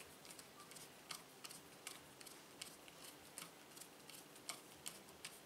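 Faint, irregular clicking, about two or three clicks a second, from a hand screwdriver turning a small M3 machine screw into a nut in an acrylic 3D-printer frame.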